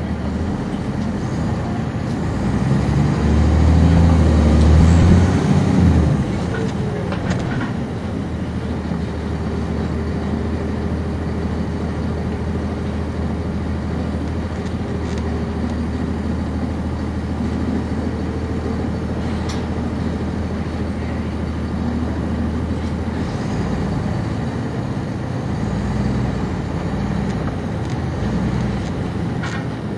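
Cummins ISC diesel engine of a 1999 NovaBus RTS transit bus heard from on board: it builds up louder for a few seconds near the start as the bus pulls away, then settles to a steady drone with a faint steady whine, and picks up again near the end.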